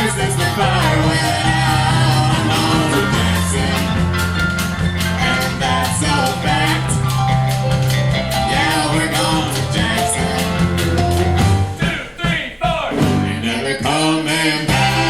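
Live band playing the closing instrumental bars of a country song. A steady bass line breaks off about twelve seconds in, then the band comes back in.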